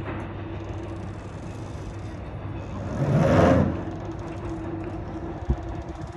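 Motor yacht's engines running with a steady low drone. About three seconds in, a louder rushing surge swells and dies away within a second.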